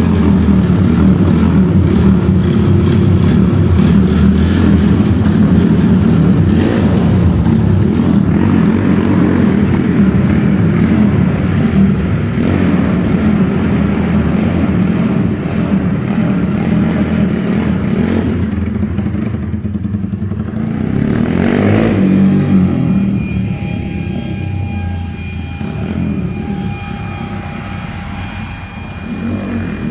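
Air-cooled single-cylinder four-stroke engine of a big-bored Honda Titan (70 mm piston, 222 cc) running loudly and being revved as the motorcycle pulls away. It gradually fades into the distance, with a passing vehicle briefly louder about twenty seconds in.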